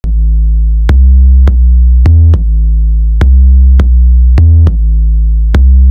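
Hip-hop instrumental backing music: a drum-machine beat with sharp hits at a steady tempo over deep synth bass notes that shift every half second or so.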